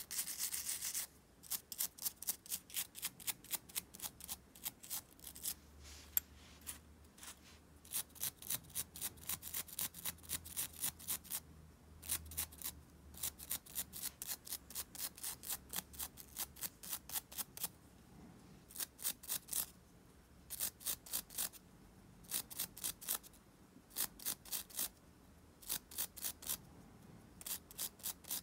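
Fast scrubbing strokes on small parts of an Abu Garcia Ambassadeur 5500 DA baitcasting reel being cleaned after disassembly. The strokes come several a second, in bursts with short pauses.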